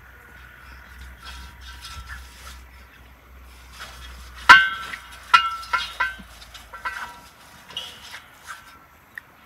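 Glass and metal kitchenware clinking while a metal baking pan is greased from a small glass of oil with a brush: one sharp ringing clink about halfway through, then several lighter clinks.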